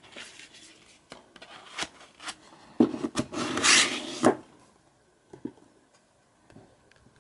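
Plastic DVD case handled with a few clicks and knocks, then slid into its cardboard slip cover with a rubbing scrape of about a second that ends in a knock about halfway through. A few soft taps follow as the boxed case is set down.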